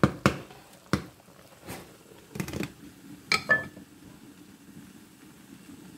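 A wooden spatula knocks against the skillet twice, followed by a few softer clatters. About three seconds in, a glass pan lid with a metal rim is set down on the skillet with two clinks, one of them ringing briefly. After that comes a faint steady low sound of the thick milky sauce simmering under the lid.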